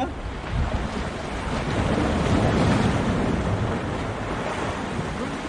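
Sea waves washing against the rocks, with wind buffeting the microphone; the surf swells to its loudest about two to three seconds in.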